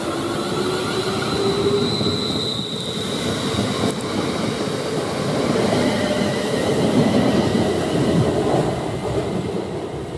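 Class 350 Desiro electric multiple unit gathering speed past the platform, its traction motors whining in a rising pitch at the start, with a brief high tone about two seconds in. The motor whine gives way to the rumble and clatter of wheels on rail as the carriages pass, easing off near the end.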